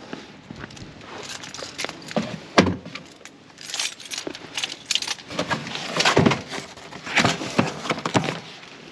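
Irregular clinking and rattling of small hard objects being handled, with a few sharper clacks.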